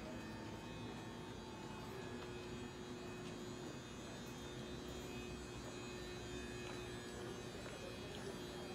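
Steady electrical hum, with a few faint steady tones, from a Kobe Electric Railway electric train standing at the platform with its doors open.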